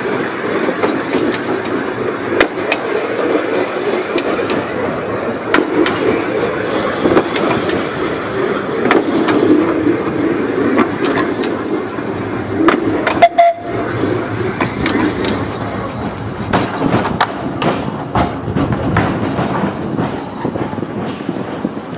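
Electric narrow-gauge tram running along the rails, heard from on board: a steady rumble of wheels on track with frequent sharp clicks as it crosses rail joints and points.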